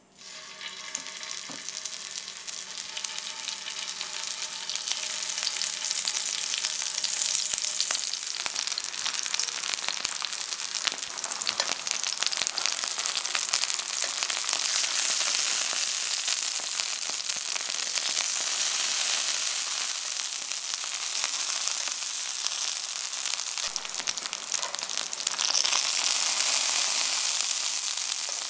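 Courgette slices frying in hot rapeseed oil. A sizzle starts suddenly as the first slice goes into the pan, then builds over the first few seconds into a steady, dense crackling sizzle as the pan fills with slices.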